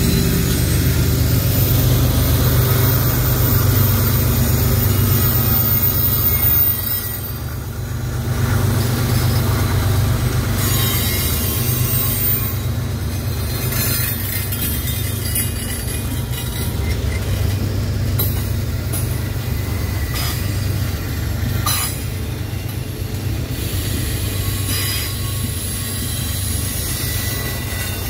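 Freight cars of a long mixed freight train rolling past a grade crossing: a steady low rumble of steel wheels on rail, with wheel squeal coming and going and a few sharp clanks.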